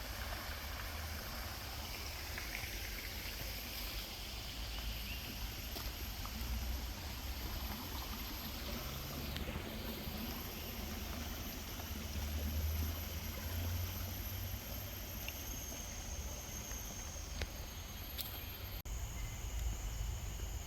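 Steady outdoor background noise: a low rumble under an even hiss, with faint high steady tones and a few soft ticks.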